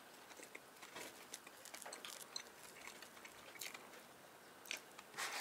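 Faint crackling and crunching of a sugar-crusted kimbula pastry being pulled apart by hand and chewed, with a few louder crunches near the end.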